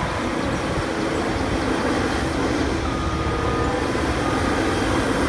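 Steady rush of running water, with no pauses, as a muddy toy bulldozer is washed under it.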